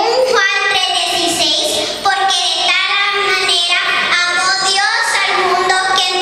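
A young girl singing a slow solo melody into a handheld microphone, with long held notes.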